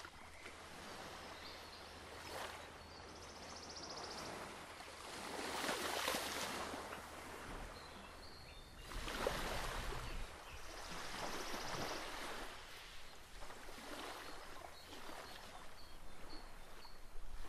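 Faint rushing water, swelling and fading every few seconds, with a few brief high-pitched trills.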